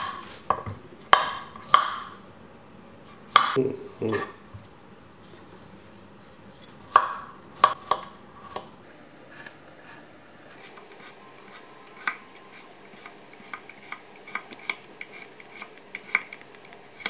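Kitchen knife cutting a cucumber on a wooden cutting board. First come sharp separate knife strokes against the board. From about halfway on there is a quicker run of light cuts, made across the cucumber as it rests between two wooden chopsticks that stop the blade short.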